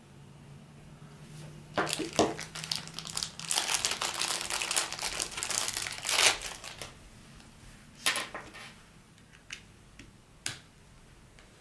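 Plastic packaging crinkling as it is handled, for about five seconds, followed by a few short clicks and taps.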